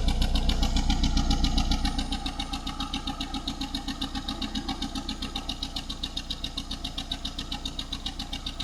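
Suzuki G15A four-cylinder engine running at idle with a steady, even pulse, its loudness dropping about two seconds in. It runs while a hydrogen-peroxide and Lavr decarbonizing mix drips into the intake manifold to burn off carbon from the combustion chambers.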